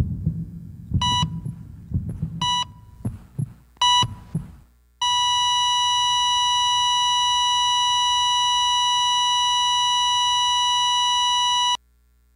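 Heart-monitor sound effect: three short electronic beeps about a second and a half apart over low thuds, then a continuous flatline tone held for about seven seconds that cuts off suddenly. The flatline signals that the heart has stopped.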